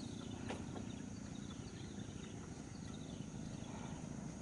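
Quiet riverside ambience: a steady low rumble under a faint, steady high insect drone, with a light click about half a second in.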